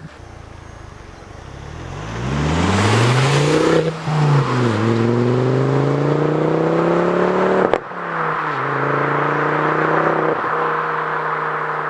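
Ford Focus ST Mk2's turbocharged 2.5-litre five-cylinder engine and exhaust under acceleration. The engine pitch climbs, drops at a gear change about four seconds in, climbs again, then breaks off sharply near eight seconds at a second gear change and settles to a steady run.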